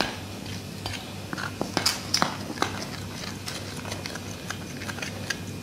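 Metal spoon stirring dry flour in a glass bowl: scattered clicks and taps of the spoon against the glass, a few sharper ones around two seconds in, over a low steady hum.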